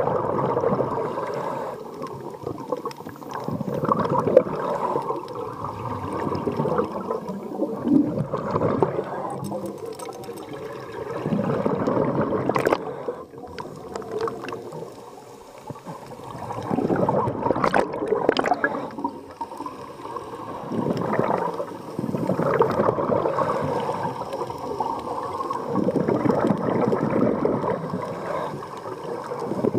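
Scuba diver's regulator breathing heard underwater: exhaled bubbles gurgling out in bursts that swell and fade about every four to five seconds, with quieter stretches between.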